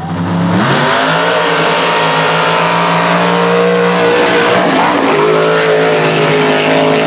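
Mega truck's engine running at high revs during a pass: the pitch climbs about half a second in and holds high, sags briefly near the middle, then climbs back up.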